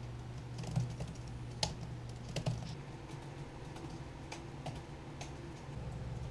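Typing on a MacBook laptop keyboard: irregular key clicks, a few louder taps among them, over a steady low hum.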